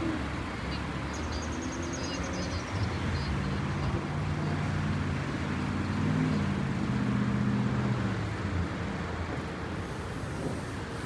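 Road traffic rumble, with one vehicle's engine note swelling and fading as it passes through the middle.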